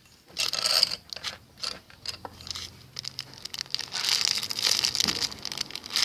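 Plastic packaging crinkling and rustling in irregular bursts as squishy toys are handled, with a short burst about half a second in and a longer stretch of crinkling near the end.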